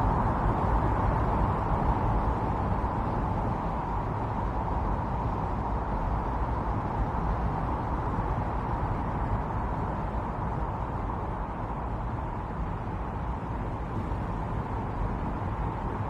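Strong winter storm wind blowing steadily, a continuous rushing that eases slightly and builds again near the end.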